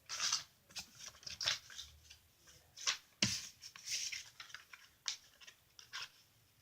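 Paper banknotes being handled: a run of short, crisp rustles and flicks as the bills are shuffled and gathered.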